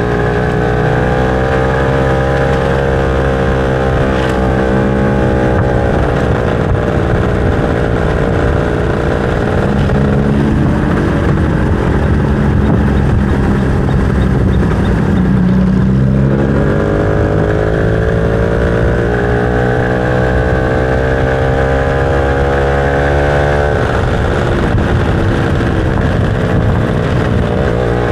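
Motorcycle engine running while riding. Its pitch sinks slowly as the bike slows, goes rougher for a few seconds, then rises again about sixteen seconds in as it picks up speed and settles into a steady cruise.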